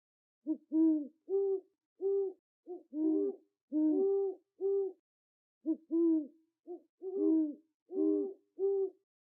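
Owl hooting: a series of short, low hoots in two phrases, with a short pause between them about halfway through.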